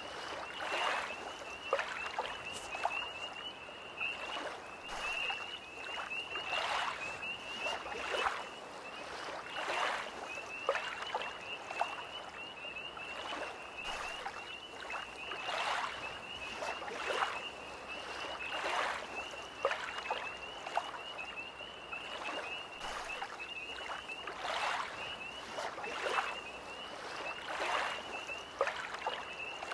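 Small lake waves lapping, a soft splash every second or two, over a steady high trilling chorus of tree frogs.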